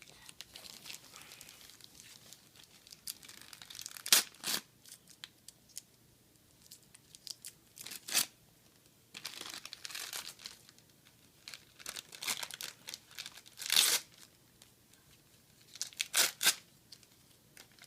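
Gift wrapping and packaging being torn and crinkled by hand, in irregular rustling bursts with a few sharp rips.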